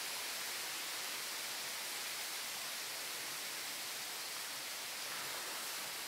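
Steady, even hiss with no distinct sounds in it, brightest in the upper range.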